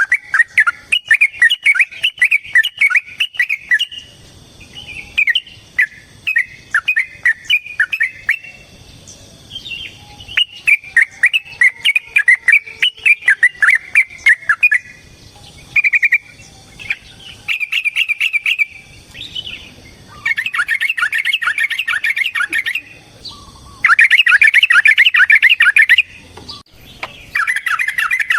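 Yellow-vented bulbul (trucukan) singing in rapid bubbling phrases of a few seconds each, with short pauses between them. The phrases grow denser and louder in the last third. This is the long, agitated "ropel" song that keepers use to provoke other bulbuls.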